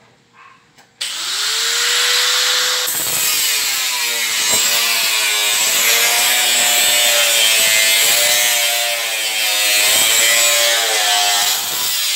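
Electric angle grinder starting about a second in, its whine rising and levelling off, then cutting metal with a loud steady grinding whose pitch wavers as the disc bites.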